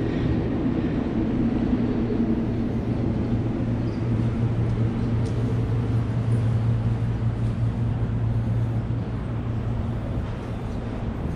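City street traffic: a steady low engine hum over a wash of road noise.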